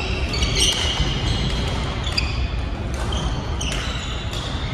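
Badminton rally: rackets striking the shuttlecock in a string of sharp hits roughly a second apart, with court shoes squeaking on the floor between them.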